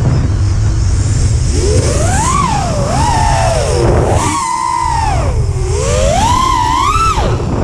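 FPV racing quadcopter's brushless motors and propellers whining, the pitch swooping up and down again and again as the throttle changes through the flips and turns, over a constant rumble of wind buffeting the onboard camera's microphone.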